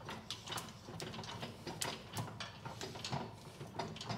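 Irregular light metallic clicks and rattles from a Meyer C-8 snowplow moldboard and its coil trip springs as the moldboard is moved by hand while the springs are hooked up and tensioned.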